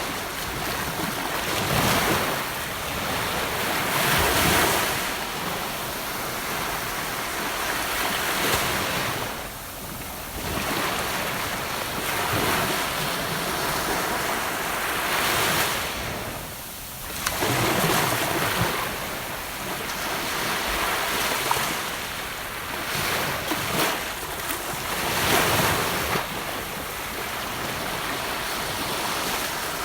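Gentle ocean waves breaking and washing up the shore, a steady hiss of surf that swells every few seconds as each wave comes in.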